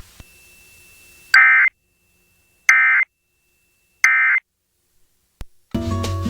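Emergency Alert System end-of-message code: three short, identical bursts of warbling digital data tones about a second and a half apart, marking the end of the severe thunderstorm warning broadcast. Near the end, a click and then guitar music as regular radio programming resumes.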